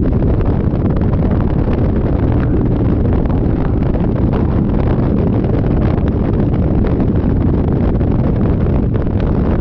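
Steady wind rushing over the microphone of a Yamaha Majesty 400 scooter while riding, with the low rumble of travel beneath it.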